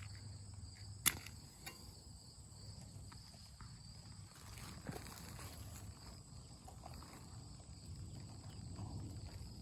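Quiet outdoor ambience of insects, likely crickets, making a steady high buzz, with one sharp click about a second in and a weaker one just after.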